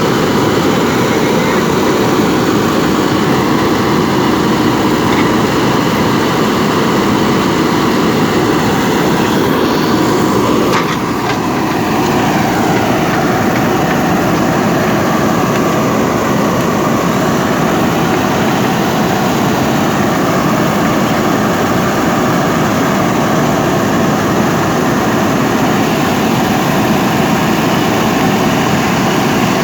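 JCB backhoe loader's diesel engine running steadily while the machine digs, with a brief drop in level and change in the sound about ten seconds in.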